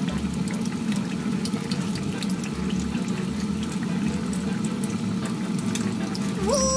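Tempura fritters deep-frying in hot oil: a steady sizzle with small crackling pops. A brief rising tone about six and a half seconds in.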